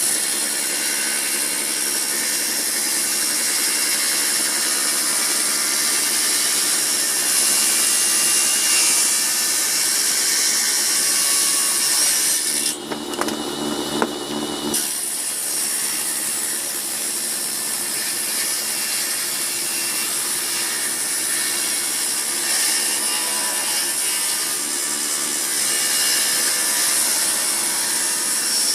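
Table saw ripping old wood: the spinning blade cuts steadily through the board. About halfway through, the cutting noise drops away for about two seconds and a few knocks are heard, then the sawing resumes.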